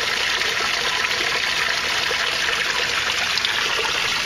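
Water steadily trickling and splashing as it flows into an aquaponics tank.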